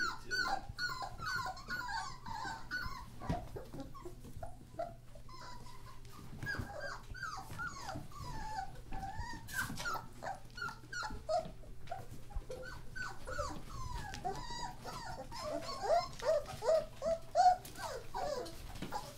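German Shorthaired Pointer puppies whining, many short high-pitched whines overlapping, louder and closer together near the end.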